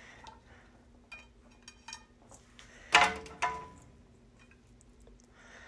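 Light clinks of kitchenware as bacon is moved from a metal sheet pan onto a glass plate: a few small ringing ticks, then one sharper ringing clink about three seconds in and a smaller one just after, over a faint steady low hum.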